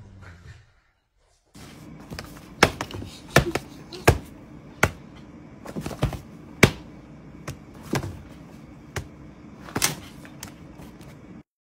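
A cat's paw patting and thumping on a paperback book: about ten irregular sharp taps, a steady low hum beneath.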